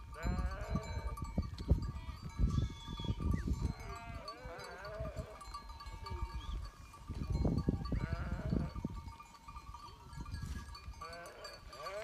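A flock of sheep bleating, with several overlapping calls coming every couple of seconds, over a low rumble.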